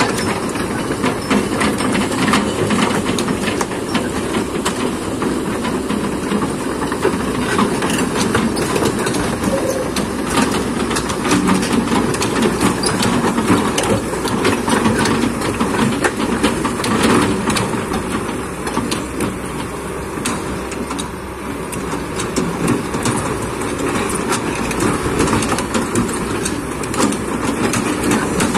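Kobelco hydraulic excavator working, its engine running steadily under load with many knocks, clanks and rattles from the machine and its bucket throughout.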